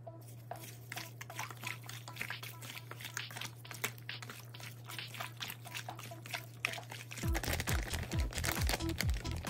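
A gloved hand mixing raw chicken wings with seasoning in a bowl, making irregular soft wet clicks and rustles over a low hum. About seven seconds in, background music with a steady thumping beat starts and becomes the loudest sound.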